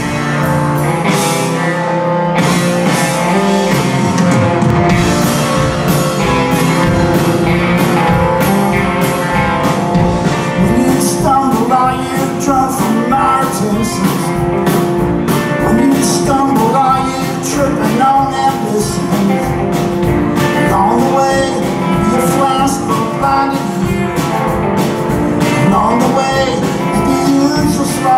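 Live rock band playing loudly: two electric guitars, bass guitar and drums, with the low end filling in about four seconds in and singing from about eleven seconds in.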